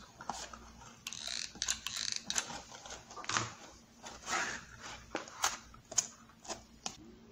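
Handling noise from a glitter EVA foam sheet being wrapped and pressed around a cardboard juice carton: scattered clicks and rubbing as the foam and carton are pushed and turned under the hands.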